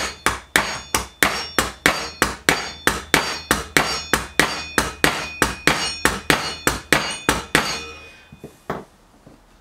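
Small hammer tapping a steel cone spanner wedged under a bicycle pedal's bearing: a steady run of light metallic blows, about three a second, that stops near the end. The blows are too light to move the bearing.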